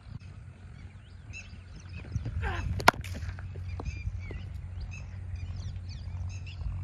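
A single sharp crack of a cricket bat striking the ball about three seconds in, over birds chirping and a low steady rumble.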